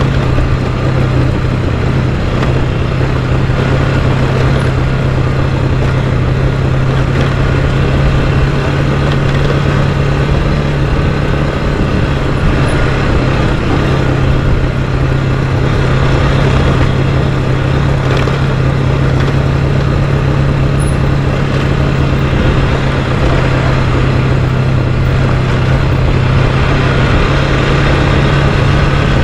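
Motorcycle engine running at a steady cruising speed on a dirt track: one unbroken low drone with wind and gravel noise over it.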